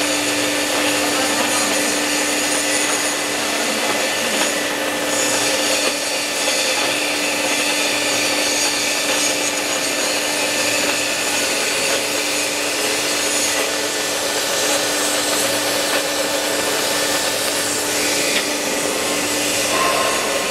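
Machinery running with a steady noisy hiss and a constant hum; the hum stops near the end.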